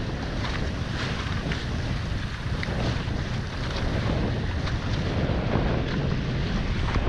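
Wind buffeting the microphone over a steady rush of water, with frequent short splashes as the hulls of a Hobie catamaran under sail slice through choppy water and throw spray.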